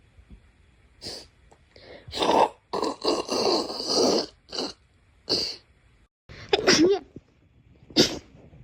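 A person sneezing over and over: a string of sharp, breathy sneezes and gasping in-breaths. After a brief cutout comes a voiced sneeze whose pitch rises and falls, then one last sharp sneeze.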